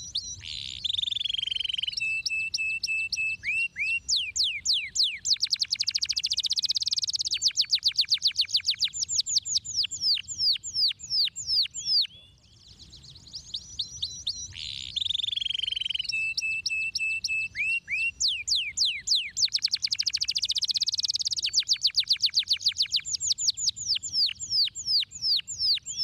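Domestic canary singing: a song of fast trills made of quick sweeping high notes, with a short steady whistled note early in each phrase. The same phrase of about twelve seconds comes twice, with a brief pause between.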